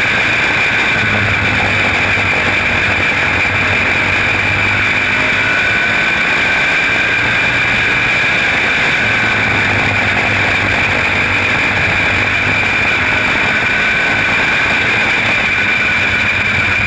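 Small open-wheel race car's engine running steadily at racing speed, picked up on board by a helmet camera, with a steady high whine over loud, even wind and running noise.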